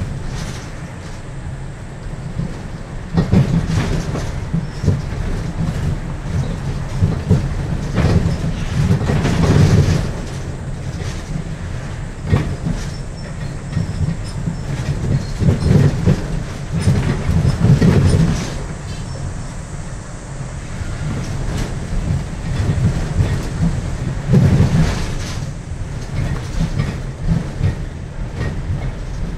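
Cabin noise of a moving city bus: a low engine and road rumble with the body and fittings rattling and clattering over the road surface. The rumble swells louder several times, around a few seconds in, near the middle and again later on.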